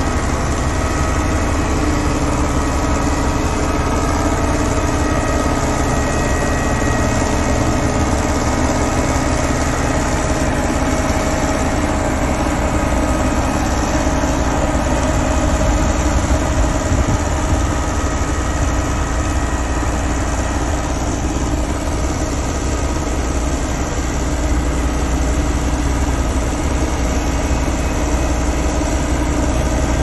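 Dynapac single-drum road roller's diesel engine running steadily, heard close up.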